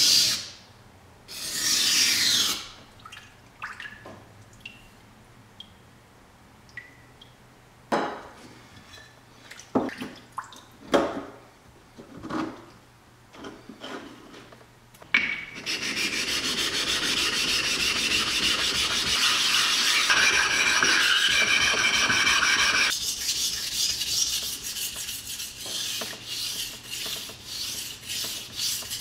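A Yu Kurosaki R2-steel knife blade scraping along a wet whetstone at the start, then scattered clicks and knocks as the stone in the holder is changed for another. About halfway through a steady hiss sets in for about seven seconds, followed by uneven strokes about once a second.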